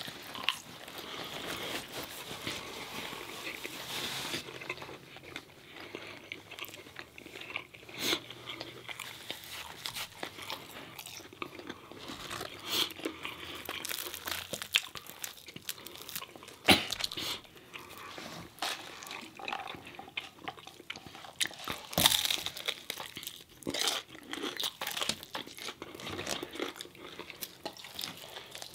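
Close-miked biting, crunching and chewing of crispy breaded fried food, in irregular crackles.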